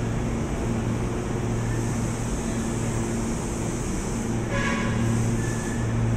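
KRL Commuter Line electric train at the platform, with a steady low electric hum. A brief higher-pitched tone sounds about four and a half seconds in.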